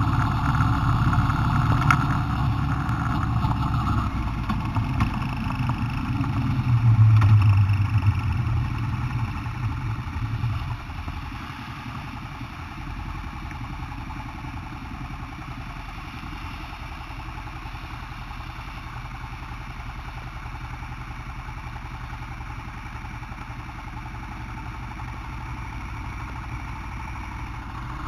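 Honda Transalp motorcycle V-twin engine running under way, with a brief louder rev about seven seconds in. After about ten seconds the sound drops to a steady idle as the bike stands at a junction.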